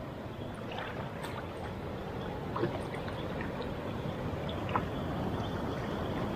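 Water sloshing and trickling around a person wading in a river while paying out a fishing net, with a few small splashes.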